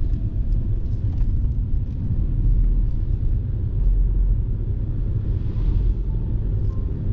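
Steady low rumble of a car's engine and tyres as heard inside the cabin while driving on a wet town road.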